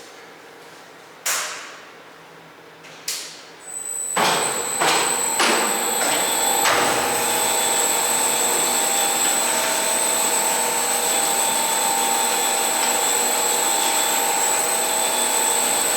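Komman Altay Roller automatic carpet washing machine starting with all its brushes running together: two sharp clunks a couple of seconds apart, then about four seconds in the machine starts with a few knocks and settles into a steady run with a high whine.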